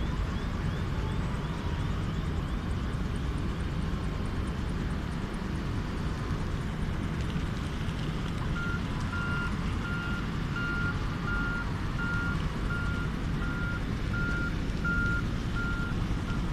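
A vehicle's reversing alarm starts about halfway in, giving evenly spaced single-pitch beeps about every 0.7 seconds over a steady low rumble.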